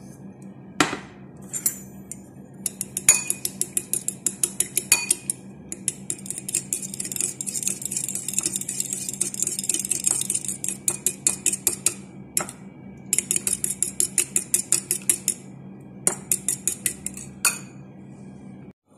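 Metal spoon beating eggs in a ceramic bowl: rapid, even clinking of the spoon against the bowl, several strokes a second, in a few spells with short pauses. A couple of single knocks come before the beating starts.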